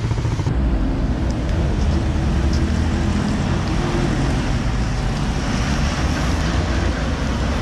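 Steady traffic and road noise heard from a moving bicycle on a city road, with wind rumbling on the microphone.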